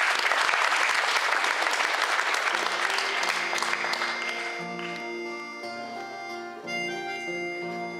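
Applause, loudest at first and dying away over about five seconds, as an accordion and acoustic guitars start playing about two and a half seconds in with steady held chords.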